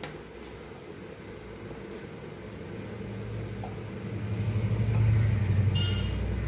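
Motor vehicle rumble that swells over a few seconds and then slowly fades, as of a vehicle passing outside. A brief high ringing note sounds near the end.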